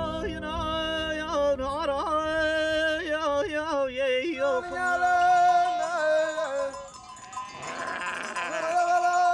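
A voice singing a slow folk melody, long held notes broken by quavering ornamental turns. About eight seconds in, an animal in the flock bleats over the song.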